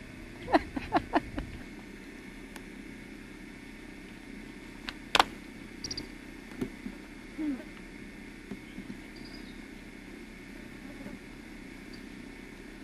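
Quiet outdoor background with steady camcorder hiss and a low hum. A few short pitched calls come in the first second and a half, one sharp click about five seconds in, and a few faint chirps after it.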